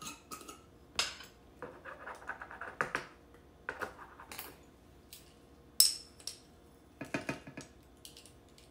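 Metal measuring spoons clinking together on their ring, with light clicks from handling a spice jar while celery seed is measured out. The clinks come irregularly, with a short run of ringing clinks about two seconds in.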